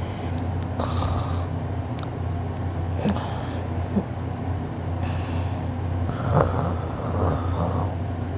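A man snoring in deep sleep: a steady low rumble, with two longer, noisier snore breaths about a second in and again around six seconds in. A few short clicks come between them.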